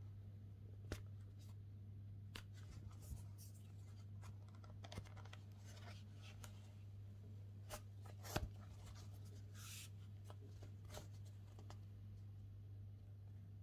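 Faint scratching and rustling of a crochet hook and chunky T-shirt yarn being handled while a yarn end is woven in, with a few small clicks scattered through, over a steady low hum.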